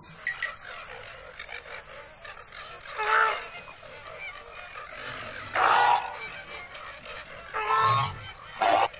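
Flamingos honking: four loud calls spread through, the last one short, over a steady background of the flock.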